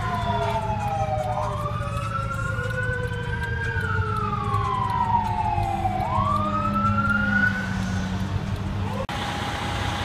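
Fire truck siren wailing, its pitch sweeping up and falling away twice while a lower siren tone slowly winds down, over a steady low engine rumble. The wail stops about a second before a sudden cut to steady engine noise.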